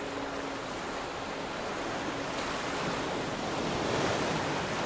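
Sea surf washing onto a sandy beach, a steady rush that swells a little louder about four seconds in.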